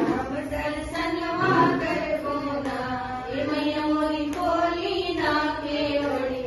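Women's voices singing a Chhath devotional folk song (Chhath geet) in long, drawn-out phrases.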